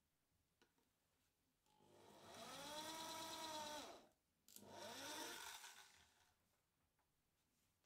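Electric drill boring a centre hole in a plywood board. The motor whine rises in pitch as it spins up, holds for about a second, then falls away. Soon after it runs again briefly and winds down.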